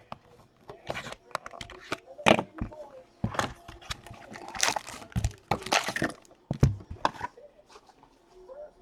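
A hockey card box and its packs being opened by hand: a run of sharp cardboard clicks and knocks, with crinkling and tearing of pack wrapping in the middle.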